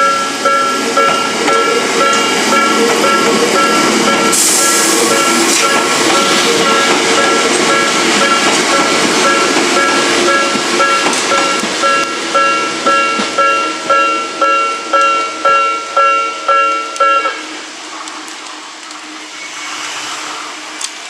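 Japanese railway level-crossing alarm ringing, a repeating two-tone electronic strike about one and a half times a second, while a Hakone Tozan Railway train passes through with rolling noise and a sudden burst of hiss about four seconds in. The alarm cuts off about seventeen seconds in, leaving a quieter steady background.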